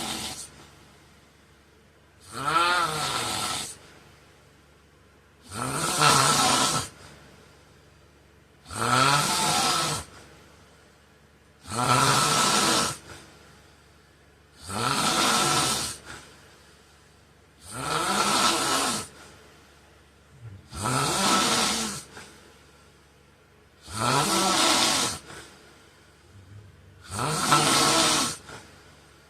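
A sleeping man snoring in a steady rhythm: about ten loud snores, one every three seconds or so, each lasting about a second, with quiet between them.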